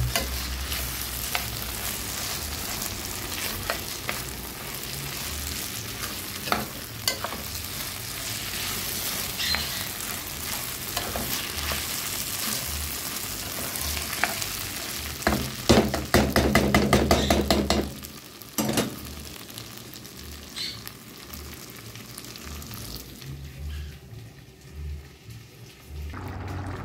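Raw rice sizzling as it fries in oil in a nonstick pan, with a utensil scraping and stirring it against the pan. A few seconds of faster, louder stirring come a little past the middle, and the sizzle dies down much quieter for the last several seconds.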